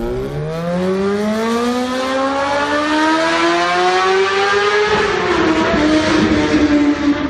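Car engine revving, its pitch rising steadily for about five seconds, then dropping and holding at a lower pitch near the end.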